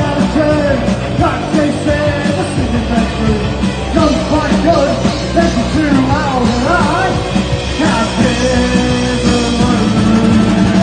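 Live punk rock band playing loud, steady music.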